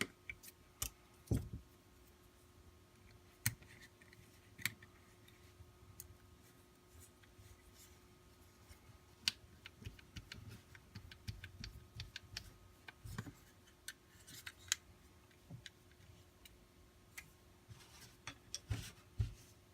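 Scattered small clicks and taps of screws and plastic holster parts being handled and fitted, over a faint steady hum.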